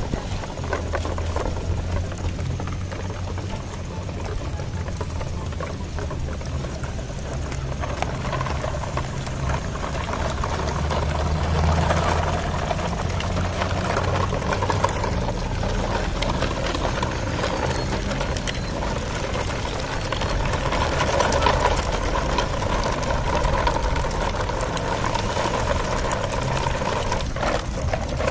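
Truck engine running steadily, a continuous low drone that grows a little louder from about a third of the way in.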